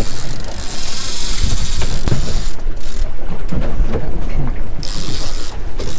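Wind buffeting the microphone on an open boat at sea, a steady rumble under a rushing hiss that drops away about halfway through and briefly returns near the end.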